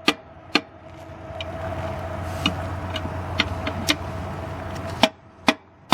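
Irregular hammer blows striking the blown tire on its rim, about nine sharp hits. A steady vehicle engine hum runs under them and stops about five seconds in.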